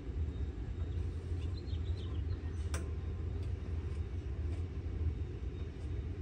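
A steady low rumble of background noise, with a single sharp click of the deck-wheel hardware being handled a little under three seconds in, a few lighter ticks, and faint bird chirps.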